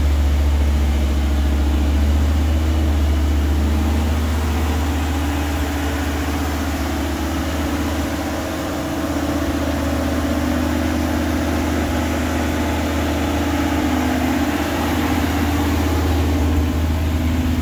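Early Ford Bronco's carbureted engine idling steadily, warming up just after a cold start following about three months of sitting.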